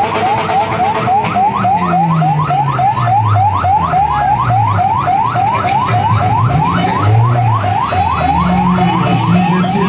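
Electronic siren in fast yelp mode: a steady run of quick rising sweeps, about four or five a second, each dropping back sharply before the next, over a low, wavering drone of motorcycle engines.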